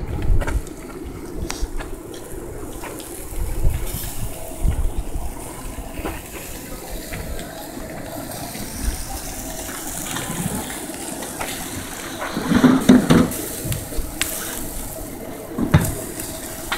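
Liquid splashing and sizzling as basting liquid is ladled over split chickens on a hot charcoal grill, with low rumbles of wind on the microphone.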